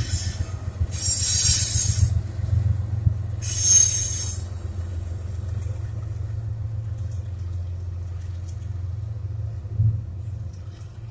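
GE diesel-electric locomotives, an ET44AC and ES44AC pushing at the rear of a coal train, passing with a steady low engine rumble that eases off near the end. Two brief high hissing bursts come in the first few seconds.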